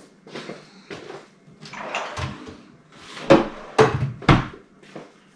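Kitchen cupboard being opened, searched and shut, with rustling and a few sharp knocks of the door and containers between about three and four and a half seconds in.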